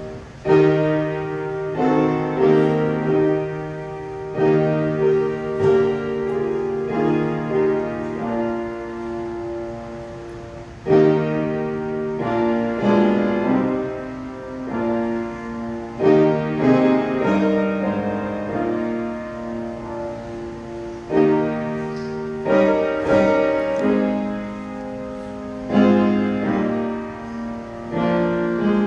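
Piano playing slow, sustained chords in phrases that each start anew every few seconds, in the style of a hymn.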